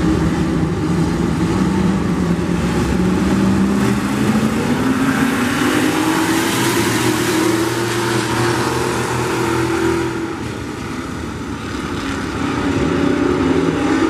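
A small pack of dirt-track classic-car class race cars running at racing speed, their engines revving. The engine pitch climbs for a few seconds and is loudest near the middle, dips about ten seconds in, then climbs again near the end.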